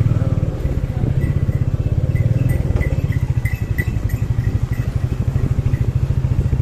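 Motorcycle engine running at low road speed on the move, an even, fast low pulsing beat. About a second in, a run of short high chirps starts over it and stops around the five-second mark.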